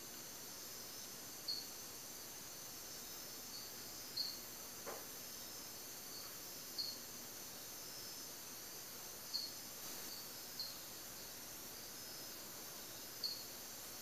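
Night-time rainforest insect chorus: a steady high hiss of calling insects, with short high chirps repeating every second or two.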